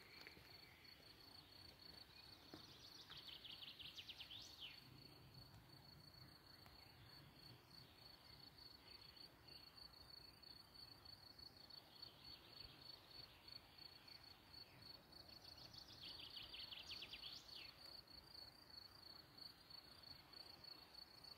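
Faint open-air ambience with a steady high-pitched insect drone and trilling, rapidly pulsed insect calls that come and go every few seconds, about four times.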